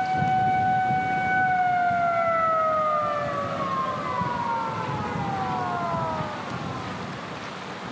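Outdoor warning siren holding one steady tone, then winding down: about a second and a half in, its pitch starts to fall slowly and it fades out past the middle. A steady rushing noise, like wind or surf, runs underneath.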